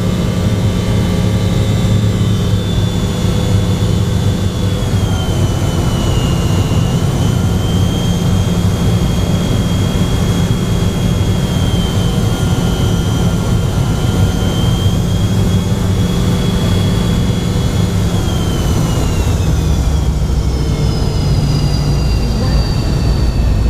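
The McDonnell Douglas MD-88's rear-mounted Pratt & Whitney JT8D turbofans, heard from inside the rear cabin: a deep drone under a steady high whine. The whine falls in pitch over the last few seconds as the engines spool down.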